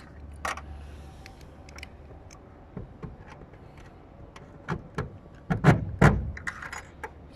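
Clicks and knocks from a drill driving a self-tapping roofing screw with a washer into metal edge flashing over a polycarbonate roof panel, loudest a little over halfway through.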